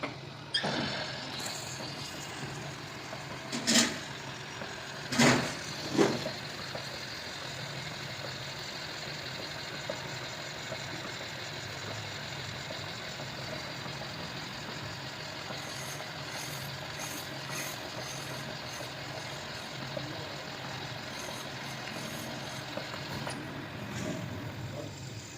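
Workshop machinery running with a steady hum, with four short, loud bursts in the first six seconds.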